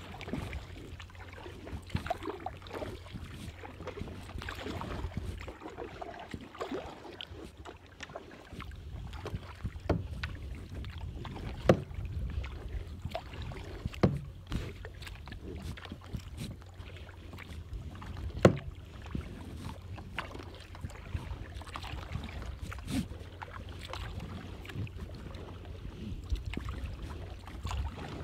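Kayak being paddled: the paddle blades dip and splash in the water, with a few sharp knocks scattered through, over a low wind rumble on the microphone.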